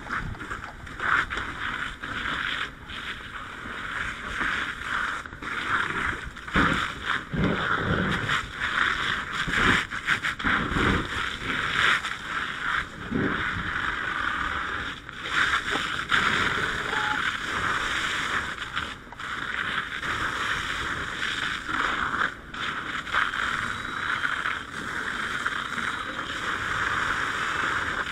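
Fire hose handline nozzle flowing water, a steady rushing hiss that wavers in strength, with irregular low rumbles through the first half.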